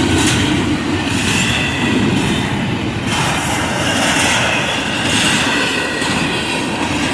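Norfolk Southern freight train passing at about 49 mph: a steady loud rumble and rush of wheels on rail, with a faint high squeal from the wheels above it.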